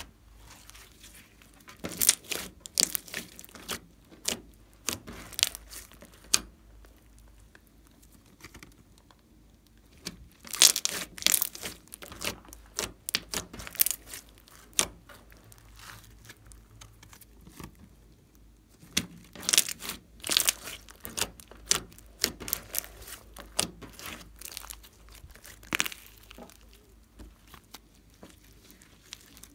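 Hands stretching, folding and pressing thick slime, giving irregular clusters of sharp crackling pops and sticky clicks, with a few quieter spells in between.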